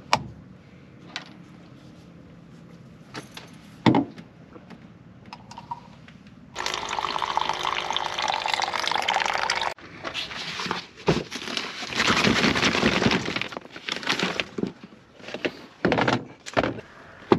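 Electric pump on a five-gallon water jug running and pouring a stream of water into a collapsible silicone bowl. It starts suddenly about six and a half seconds in and cuts off about three seconds later. More running water and splashing follow for a few seconds, among light knocks of dishes being handled.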